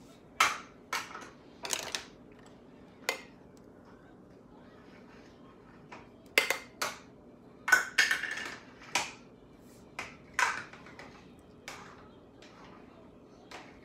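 About a dozen sharp plastic clicks and taps at irregular intervals, with a quiet stretch of a few seconds between them, as a makeup brush is worked in and tapped against an eyeshadow palette.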